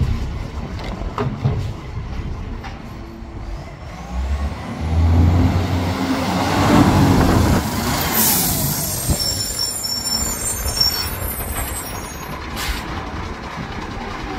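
Side-loading garbage truck's diesel engine running at idle while its lifting arm handles a wheelie bin, the engine growing louder for a few seconds midway. A loud burst of air hiss, like an air-brake release, comes about eight seconds in, with a shorter hiss near the end.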